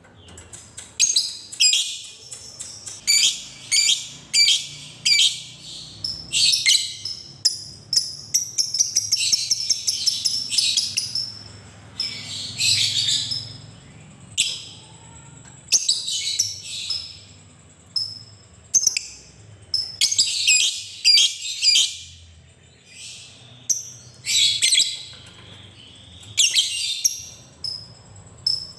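Lovebird calling: shrill, high chattering bursts in quick succession, some drawn out into a longer unbroken rattling run about eight to eleven seconds in. This is the rapid chatter that Indonesian keepers call ngekek.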